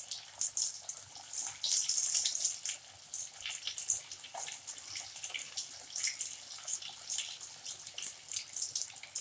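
Sabudana vadas deep-frying in hot oil in a steel kadai: a steady crackling sizzle as fresh raw patties are slipped into the oil.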